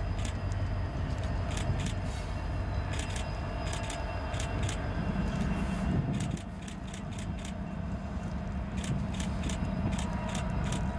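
A slow-moving diesel locomotive consist led by an EMD SD60E, the engines rumbling at low throttle, the engine note rising about five seconds in. Irregular metallic clicks and rattles from the wheels and running gear on the rails.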